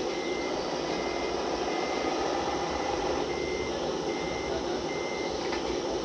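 Reversing beeper of a radio-controlled scale construction vehicle, six short high beeps about one every 0.8 s with a slightly longer gap midway, over a steady engine sound.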